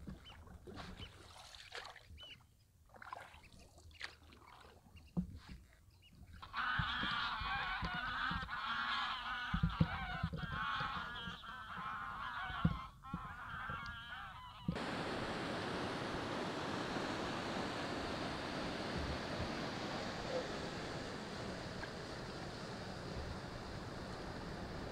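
A flock of geese honking, many calls overlapping, starting about six seconds in and lasting some eight seconds after a quiet stretch with a few light knocks. The calls cut off suddenly and give way to a steady rush of wind on the microphone and water.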